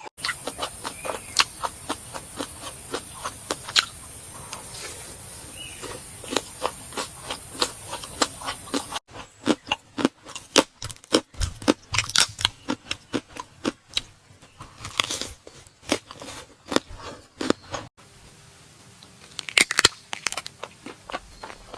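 Close-up eating sounds: rapid crunchy bites and chewing clicks, in three spliced stretches that cut off abruptly about 9 and 18 seconds in, with a steady hiss under the first stretch.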